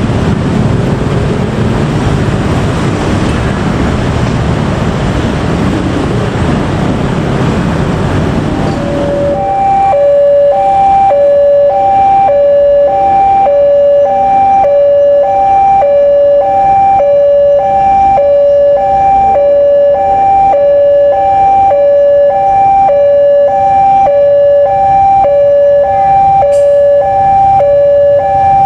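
A train runs past and away for the first nine seconds or so. Then a railway level-crossing warning alarm starts, a steady two-note high-low tone repeating about once a second, warning that a train is approaching.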